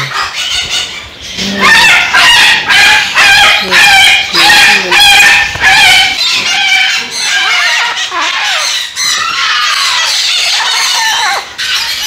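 A rooster crowing loudly a few seconds in, followed by softer, scattered calls of other birds.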